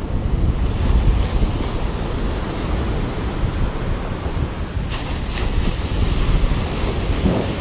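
Ocean surf washing up on a sandy beach, with wind buffeting the microphone. There are two faint clicks about five seconds in.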